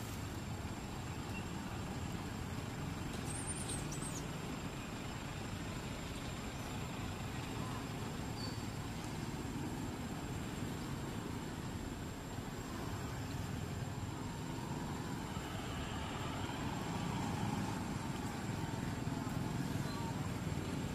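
Steady low background rumble at an even level throughout.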